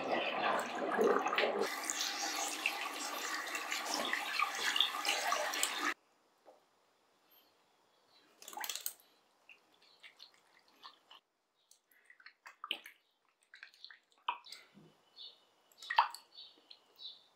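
Water running from a sink tap for about six seconds, then cut off abruptly. Afterwards come scattered small splashes and drips as hands wash a kitten in the shallow water of the sink.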